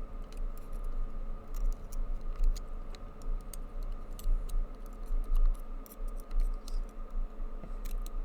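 Tubular lock pick working in the tubular cylinder of a Master Lock Street Cuff bicycle lock: small, irregular metal clicks as the pins are picked, turning the lock back to locked. A steady low hum runs underneath.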